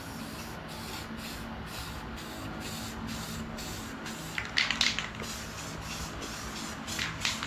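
Aerosol spray paint cans spraying paint, a steady hiss with louder, sharper bursts about four and a half seconds in and again near the end.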